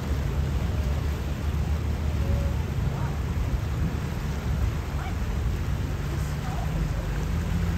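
Steady low drone of a boat engine under way, with wind buffeting the microphone.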